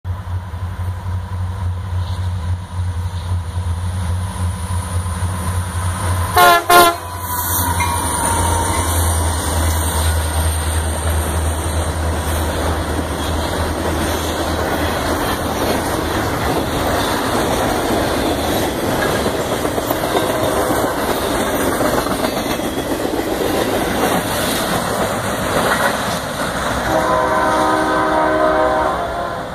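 Union Pacific intermodal freight train passing: a steady low diesel locomotive drone as it approaches, a short, loud horn blast about six seconds in, then the continuous rumble and clickety-clack of trailer-carrying railcars rolling by. Near the end a steady pitched tone sounds for about two seconds.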